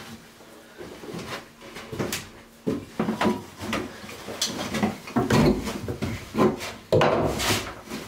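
Irregular knocks, bumps and scrapes of things being handled against wooden joinery in a small cabin, sparse at first and busier and louder in the second half.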